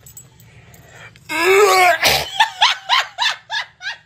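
Spaniel vocalizing: one long whine that rises and falls, then a quick run of short yips, about three or four a second, each dropping in pitch.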